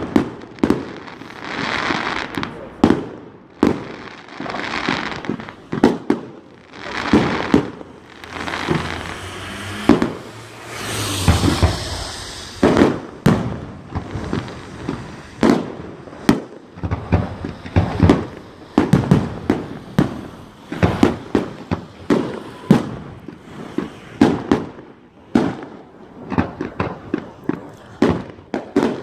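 Aerial fireworks going off overhead in rapid succession: an irregular run of sharp bangs and pops, broken by several longer hissing stretches.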